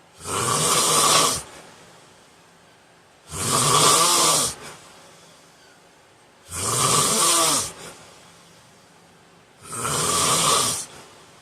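A man snoring in his sleep: four loud snores at a steady rhythm, one about every three seconds, each lasting a little over a second, with quiet breathing between.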